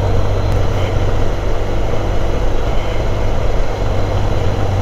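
Motorcycle on the move: a steady low engine drone under even road and wind noise, picked up by a bike-mounted camera.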